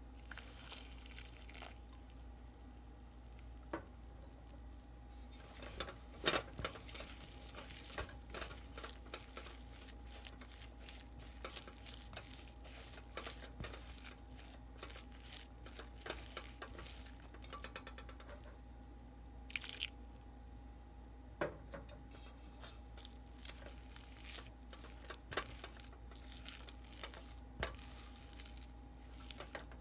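Silicone spatula stirring and scraping crumbly glutinous rice flour dough in a stainless steel bowl. Irregular taps and scrapes against the bowl begin about five seconds in, over a faint steady hum.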